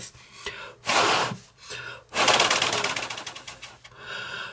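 Breath blown in gusts onto a spinning paper origami fidget spinner, its paper flaps fluttering with a rapid clatter. There is a short gust about a second in, a longer one from about two seconds in that fades, and a softer one near the end.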